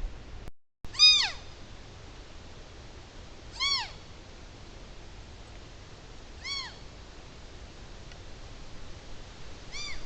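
Young deer giving short, high, mew-like bleats, four times about three seconds apart, each call arching up and then sliding down in pitch; the first is the loudest. These are soft social calls.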